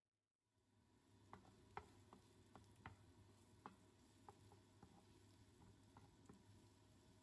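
Onion and garlic sautéing in melted butter in a nonstick frying pan: a faint sizzle over a low steady hum. A wooden spatula taps and clicks against the pan about a dozen times as it stirs. The sound starts about half a second in.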